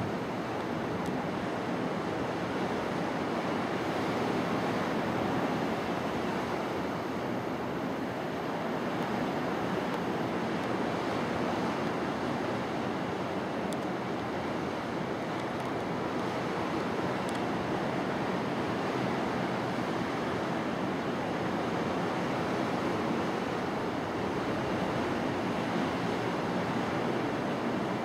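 Steady rushing noise of surf on a beach, mixed with wind on the microphone.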